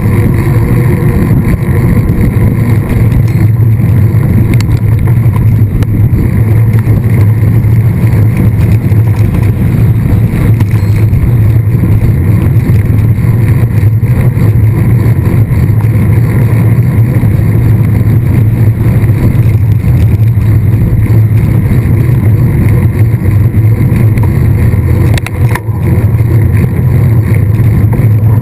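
Steady, loud rumble of wind buffeting the microphone of a camera carried on a mountain bike at speed, mixed with tyre noise on the trail, with a brief knock about 25 seconds in.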